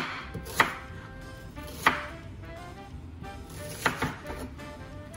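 Chef's knife chopping a white onion on a wooden cutting board: a handful of separate, sharp knife strikes on the board, irregularly spaced, with a small cluster of lighter cuts about four seconds in.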